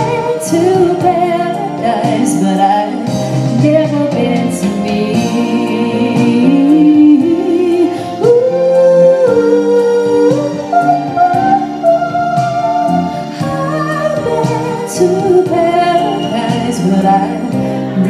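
A woman sings live into a microphone, holding long notes and sliding up into them without clear words, over guitar and backing music.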